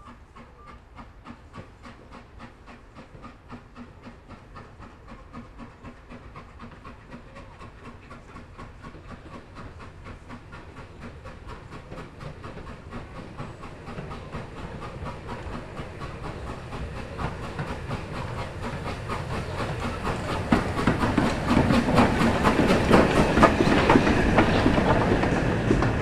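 Steam locomotive working a train, its exhaust beats a regular rhythm, with wheels clattering on the rail joints. It starts faint and grows steadily louder, loudest near the end.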